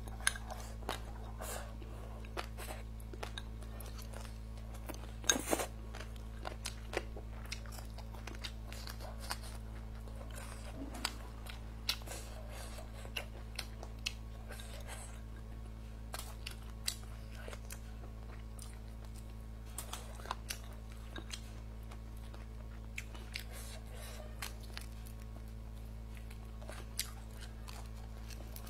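Close-miked chewing and biting as a person eats fish, peppers and rice, with irregular small crunches and clicks; the loudest crunch comes about five seconds in. A steady low hum runs underneath.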